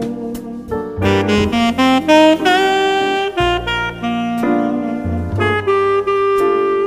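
Background jazz music with a saxophone playing the melody over piano and bass, with light percussion hits.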